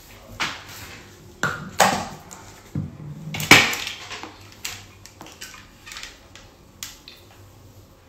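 Irregular sharp clacks and knocks, about nine of them spread over several seconds, the loudest about three and a half seconds in, from a hair crimper being handled and clamped on hair.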